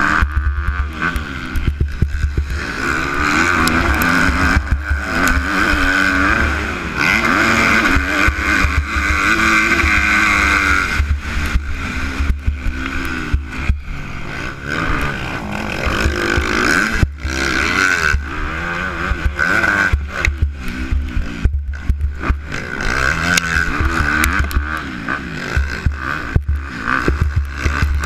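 Motocross dirt bike engine revving hard and falling back over and over as the rider races, with heavy wind rumble on the helmet-mounted camera's microphone. There are brief sudden drops, as when the throttle is chopped.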